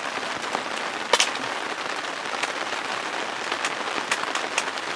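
Rain falling on tent fabric: a steady hiss with scattered sharp taps of drops, one louder tap about a second in.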